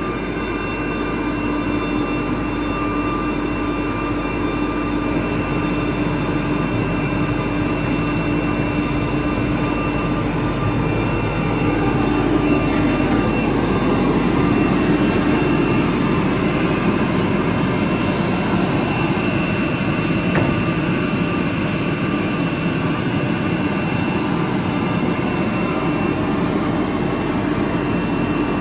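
An ATC CNC router running: steady machine noise with a constant whine, growing somewhat louder and fuller about twelve seconds in.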